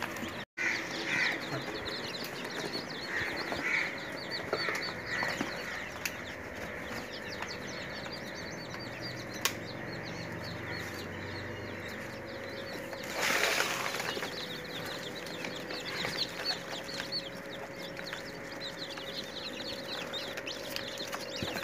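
Many chicken chicks peeping continuously, with short high chirps overlapping one another all through. There is a brief burst of noise about thirteen seconds in.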